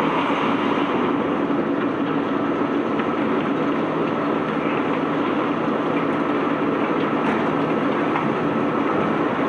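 Steady, dense rumble and rattle of cobblestones being unloaded from a barge, with a few faint small clicks.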